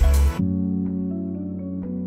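Background music: a loud track with a steady beat cuts off abruptly about half a second in and gives way to a soft, calm passage of held notes with light struck notes over them.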